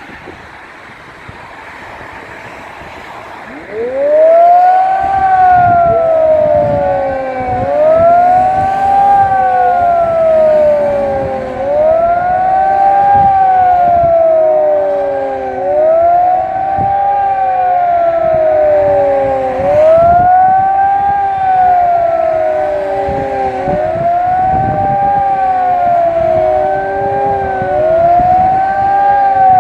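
Electronic high-performance civil-defence siren sounding a warning wail in a test alarm. It starts about three and a half seconds in, its pitch sweeping up and down about every four seconds, over wind buffeting the microphone.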